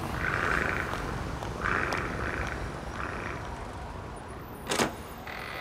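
An electric door buzzer pressed three times, the last press the shortest, then a single sharp click near the end.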